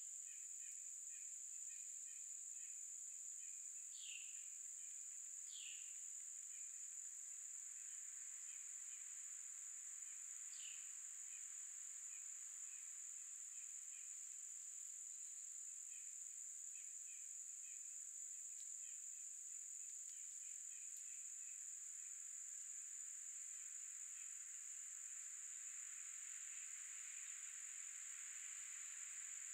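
Summer woodland insects: a steady high-pitched drone, with softer pulsed chirping beneath it. A few short falling calls come through in the first ten seconds or so, about four in all.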